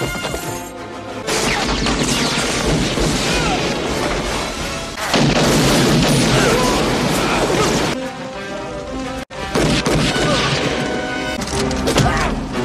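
Action-film sound mix: gunfire, booms and crashes from a shootout amid fire, over a dramatic film score, dense and loud throughout with sudden surges.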